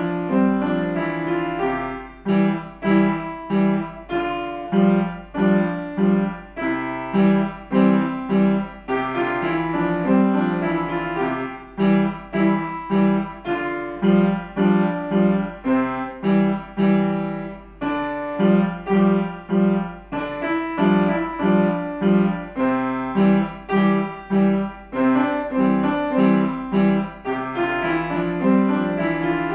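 Upright piano played solo: a brisk piece of short, accented chords struck about two a second over a repeated bass.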